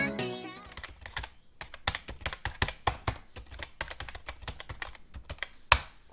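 Computer keyboard typing: a run of quick, irregular key clicks, with one louder keystroke near the end. The tail of music fades out at the start.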